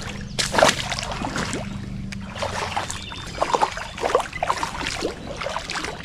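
Water splashing and sloshing in short, irregular bursts, with scattered knocks and clicks, as a freshly caught rainbow trout is handled to be kept. A low steady hum runs under it for the first couple of seconds.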